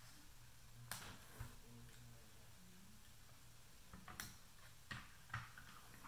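A few faint, scattered clicks and taps of a replacement battery being connected to its leads and seated in a plastic monitor housing, over a faint low hum. There are two clicks around the one-second mark and a small cluster about four to five seconds in.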